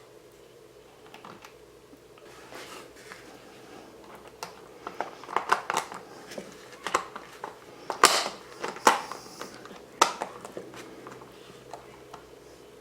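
Hands handling small drone-kit parts and hardware: irregular clicks, taps and short rustles. The loudest sharp clicks come about eight and ten seconds in.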